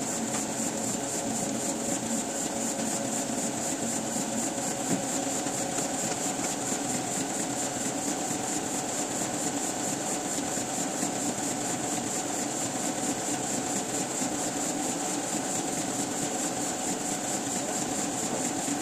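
Printing press machinery running steadily, a continuous mechanical sound with a fast, even rhythm.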